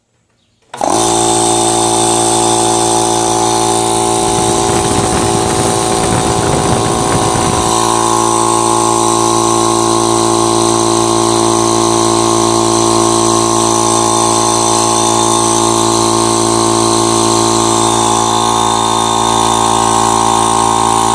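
Air compressor with a rewound 2 HP, 110 V single-phase motor switched on about a second in, then running steadily with an even hum as it starts filling its empty tank. A rough rattle runs through it from about four to eight seconds in.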